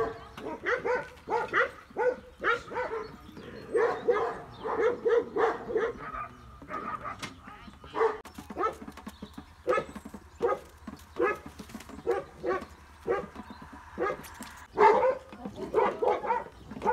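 A dog barking over and over in quick runs of short barks, about three a second, with a few brief pauses.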